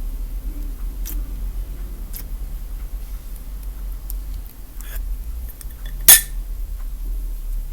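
Old, stiffened slime being squeezed and stretched by hand, giving scattered small clicks and pops, with one loud sharp pop about six seconds in.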